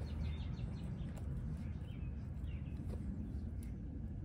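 Small birds chirping in quick, short, repeated calls over a steady low background rumble.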